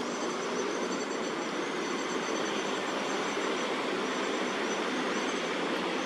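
Steady outdoor city background: a constant rush of distant traffic, with thin, high-pitched steady tones that break off and start again every second or two.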